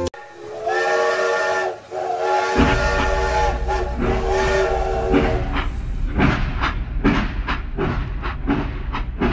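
Battery-operated toy steam locomotive sounding its built-in whistle, a short blast and then a longer one, as its motor starts with a low hum. The whistle then gives way to a steady chuffing of about three beats a second while the train runs on its plastic track.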